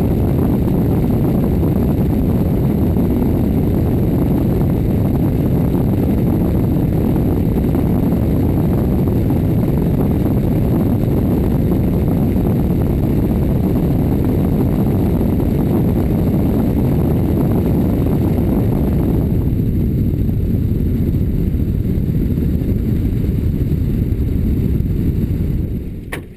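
Steady rush of wind and engine drone from a small plane in flight, picked up by an action camera taped to the outside of its belly. The noise is loud and low. Its higher part dulls about two-thirds of the way through, and it drops off sharply at the very end.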